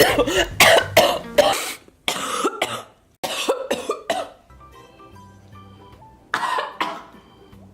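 A woman coughing hard in a rapid series of harsh coughs for about four seconds. Quiet background music follows, broken by one more short coughing fit near the end.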